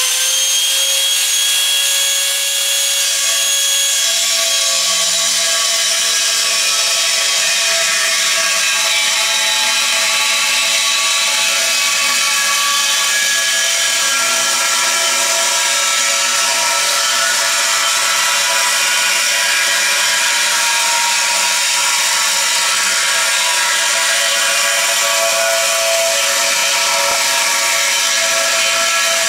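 Handheld angle grinder running at full speed, then cutting into the steel wall of a gas tank from about five seconds in. Its whine drops in pitch under load and the cut goes on loud and steady.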